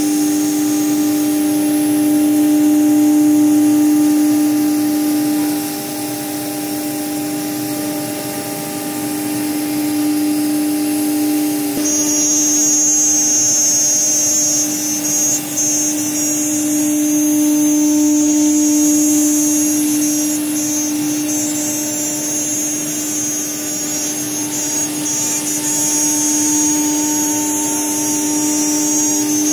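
Blue Elephant 2131 ATC CNC router's spindle running with a steady whine while the bit cuts into an acrylic sheet, the cutting noise rising and falling as it moves. A second, high-pitched whine joins partway through.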